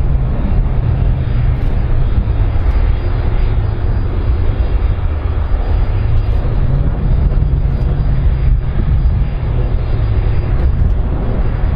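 Airbus A310-304 airliner's jet engines (General Electric CF6-80C2 turbofans) running as the aircraft rolls along the runway: a loud, steady, deep rumble.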